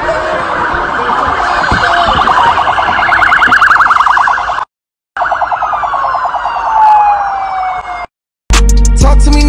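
Police car siren wailing in a fast warble, with a short break, then winding down in a falling tone. Near the end it cuts to loud hip-hop music with a heavy beat.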